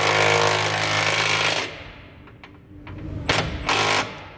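Cordless impact driver hammering a hitch mounting bolt tight through a long socket extension. It runs continuously for about a second and a half, then stops suddenly. Two short bursts follow near the end.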